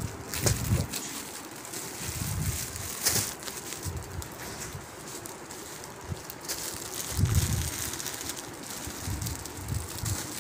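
Plastic-wrapped rolls of suit fabric rustling and crinkling as they are handled and laid out, with scattered sharp crackles and soft low thumps.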